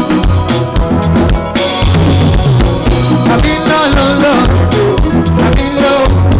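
Upbeat band music in an instrumental passage with no vocals: a drum kit keeps a steady beat under repeating bass notes and melodic lines.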